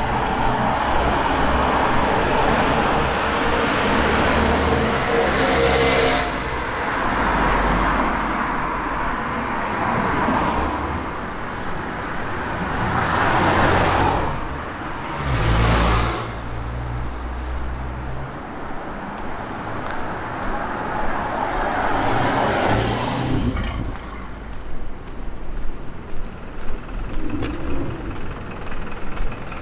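City street traffic: cars and heavier vehicles passing one after another, each swelling up and fading away, over a steady roadway hum. It grows quieter near the end.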